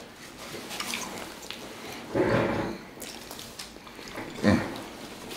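Close-up mouth sounds of eating: wet chewing and lip-smacking clicks, broken by a short hum-like voice sound about two seconds in and another brief one about four and a half seconds in.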